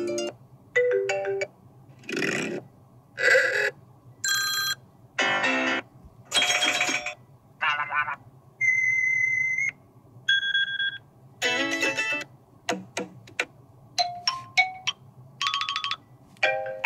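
iPad Air 5 ringtones previewed one after another through the tablet's speaker: about a dozen short electronic chimes and jingles, each half a second to a second long, with brief gaps between them. A faint steady low hum runs underneath.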